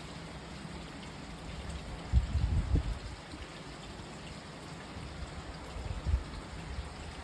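Rain falling with a steady hiss, with a few low bumps on the microphone about two to three seconds in and again near six seconds.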